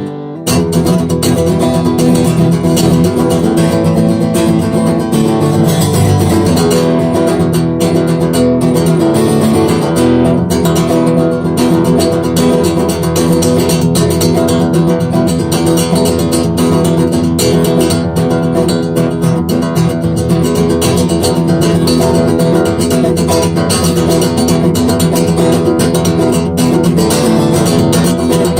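Martin HD-28 dreadnought steel-string acoustic guitar being played unamplified, notes and chords ringing continuously after a brief break at the start, picked up by a phone microphone.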